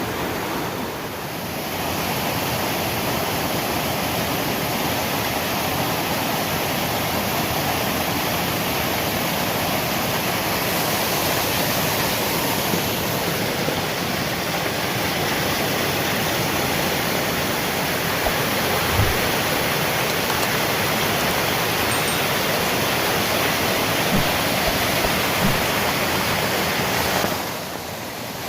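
Waterfall: a steady, dense rush of falling and splashing water.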